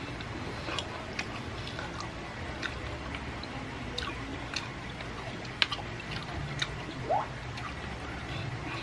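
Close-miked chewing and wet mouth sounds while eating kimchi, with scattered light clicks of wooden chopsticks against a plastic food container. A short rising squeak comes about seven seconds in.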